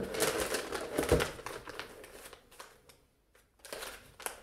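Packaging rustling and crinkling as hands rummage among wrapped food items in a cardboard box, with a low knock about a second in. A few more crinkles of a foil bag come near the end.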